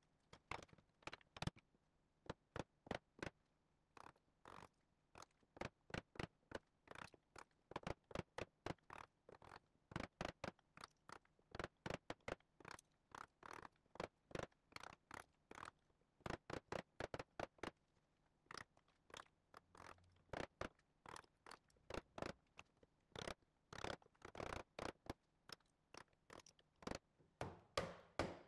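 Mallet striking a chisel over and over, chopping waste out of a half-lap joint in hard maple: sharp knocks at one to three a second, some in quick pairs, with short pauses between runs.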